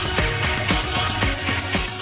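Upbeat pop-style music with a steady drum beat, about two beats a second.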